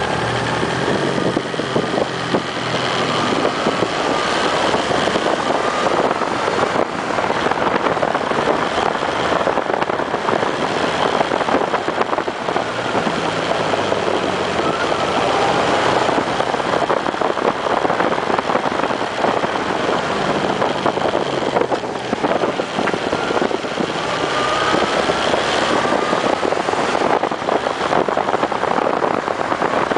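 Honda CB1300 motorcycle's inline-four engine running under way, its revs rising a few times as it pulls out of bends. Heavy wind rush on the handlebar-mounted microphone runs over it.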